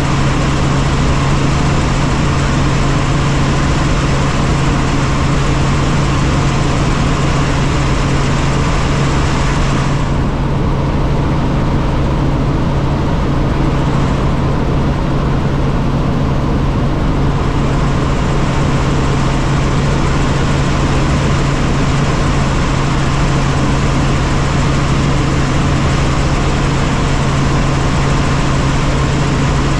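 Helicopter in flight heard from inside the cabin: a steady, loud drone of engine and rotor with a strong low hum. The hiss above it thins out for several seconds about ten seconds in.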